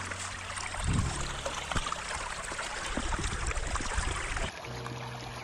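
Shallow river water trickling and splashing over stones close to the microphone, with a few small ticks throughout. A couple of low thumps come about a second in.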